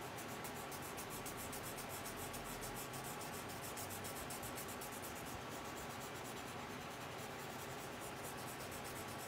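A paper blending stump (esfumino) rubbing over graphite on drawing paper in quick repeated circular strokes, blending the shading into a smooth tone. It makes a steady scratchy rubbing.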